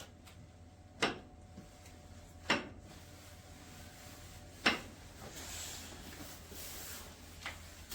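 Three sharp knocks, the first two about a second and a half apart and the third about two seconds later, over a low hum, followed by a soft hiss.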